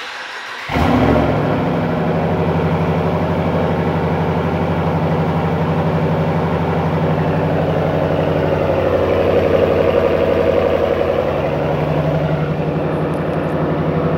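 2022 Ram 1500's 5.7-litre Hemi V8 remote-started: a short crank, then it catches under a second in with a brief flare and settles into a steady idle through the GT package's dual exhaust.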